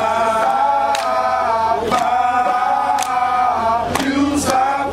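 A group of men chanting in unison on long held notes, kept in time by a sharp hit about once a second.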